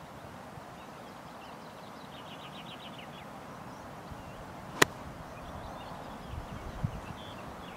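A pitching wedge striking a golf ball: one sharp click about five seconds in, the loudest sound by far, over a steady outdoor background.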